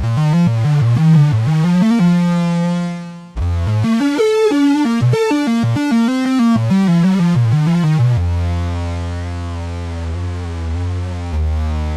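RYK Modular Night Rider synth module playing a run of short notes that step and bend in pitch. A held note fades out about three seconds in and is followed by more quick notes. From about eight seconds in, a long steady low note holds.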